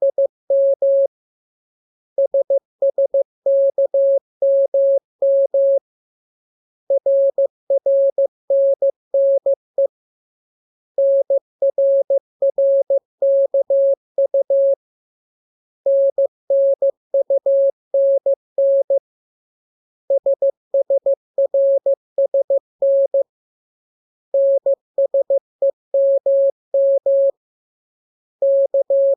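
Morse code (CW) practice tone: a single steady-pitched beep keyed in dots and dashes, sent in groups of characters a few seconds long with pauses of about a second between them, as in a receiving-by-ear drill.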